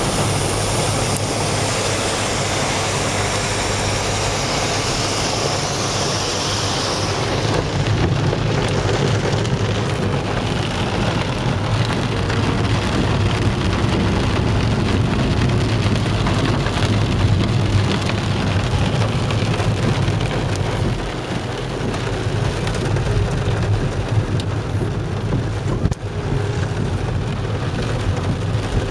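Rain falling on a car's windscreen and roof, heard inside the moving car, over a steady low drone of tyres on the wet road and the engine. A bright hiss in the first several seconds dies down about seven seconds in.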